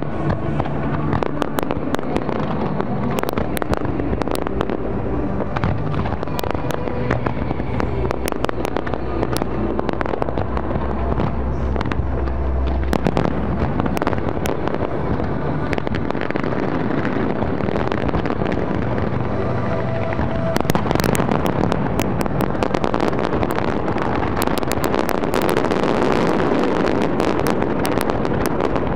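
Large fireworks display: a continuous barrage of shell bursts, bangs and crackle overlapping one another. The crackling grows denser about two-thirds of the way through.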